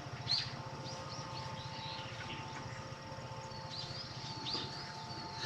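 Small birds chirping in short, scattered high calls, some rising, over a faint steady low hum.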